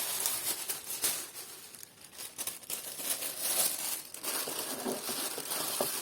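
Sheet of thin pearlescent tissue paper crinkling and rustling as it is handled and torn into pieces by hand, with a softer stretch about two seconds in.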